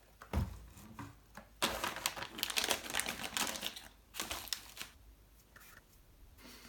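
Packaging crinkling and rustling as the kit's parts are handled, in several uneven bursts with short pauses, the longest about two seconds in.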